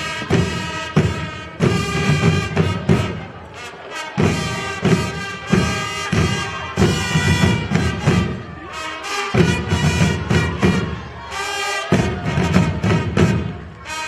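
Marching fanfare corps playing: long fanfare trumpets sounding a fanfare over the steady beat of landsknecht rope-tension drums.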